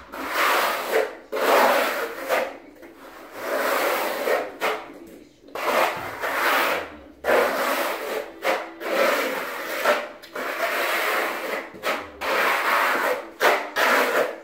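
Steel flat trowel scraping over the floor as it spreads a thin grey skim coat, in a series of sweeping strokes of about a second each with short pauses between them.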